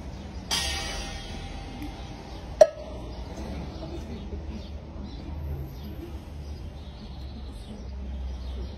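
A street performer's one-man-band rig sounds a single ringing crash about half a second in that fades over a second or so. A sharp loud knock follows about two and a half seconds in, and after that only low street background.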